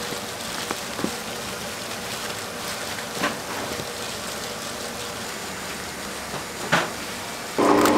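Steady background noise of work in a rice cake shop, broken by a few sharp knocks. Near the end a motor-driven machine starts abruptly and runs loud and steady with a humming tone.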